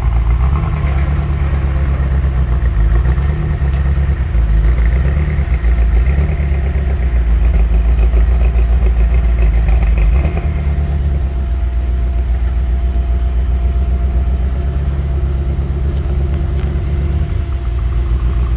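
BMW M6 engine running unevenly with two cylinders misfiring, their fuel injectors shut down. It swells a little louder about four seconds in and settles back down about ten seconds in.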